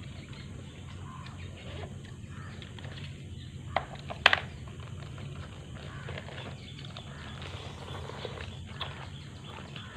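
Mouth-level eating sounds of a person slurping and chewing noodles, with two sharp clicks about four seconds in, the loudest sounds.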